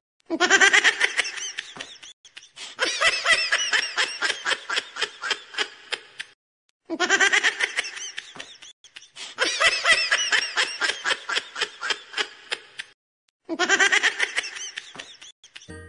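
Human laughter in quick pulses, coming in about five bursts with short silent breaks between them.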